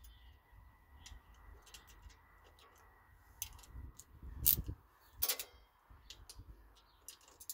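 Irregular clicks and clinks of hand tools and metal brake parts being worked on an ATV's front brake caliper, with two louder metallic knocks about four and a half and five seconds in, the second ringing briefly.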